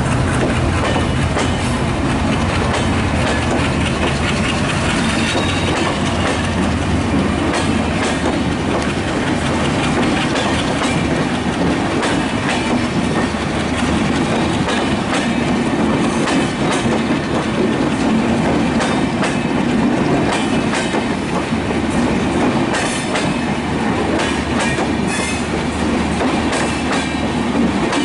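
Intercity passenger train coaches rolling past close by, wheels clicking steadily over the rail joints.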